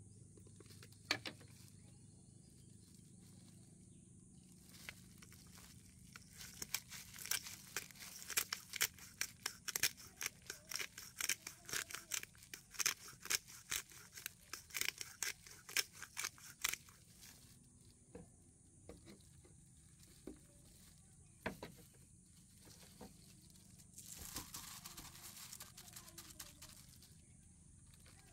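Pepper grinder cracking peppercorns: a quick run of crunchy clicks lasting about ten seconds, with a few single clicks after it.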